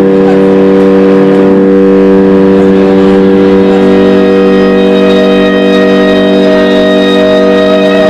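Loud, unbroken drone of amplified prepared guitar and bass guitar in a free-improvised noise piece: several steady low held tones under a dense buzzing layer, with a higher tone swelling about five seconds in.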